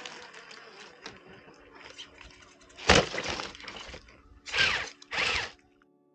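An RC scale crawler truck rolls off a rock and crashes onto its roof on leaf-covered ground: one sharp loud impact about three seconds in, then clattering and rustling, and two short noisy bursts near the end.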